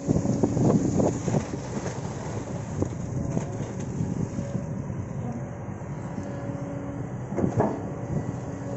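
Kobelco SK200-10 hydraulic excavator working, its diesel engine running steadily under the hydraulics. Clanks and knocks from the machine come mostly in the first second and a half and again once more near the end.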